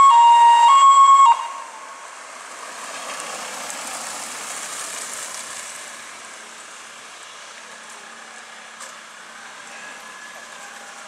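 A loud two-tone emergency siren alternates between a higher and a lower note roughly every three-quarters of a second, then cuts off abruptly a little over a second in. A steady hiss follows.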